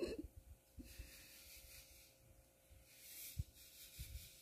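Faint, uneven low rumble of wind on the microphone, with soft rustling now and then and a few light thumps.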